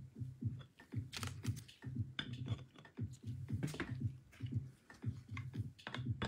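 Scattered light clicks and taps of plastic trading-card cases being handled and set onto acrylic display stands, over quiet background music with a steady low beat.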